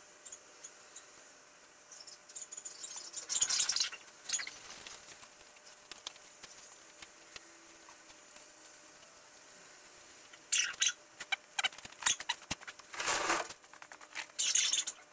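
Paintbrush scratching and swishing against metal vise parts in several short bursts of strokes, with light clicks between and the brush tapping and wiping in the paint tin near the end.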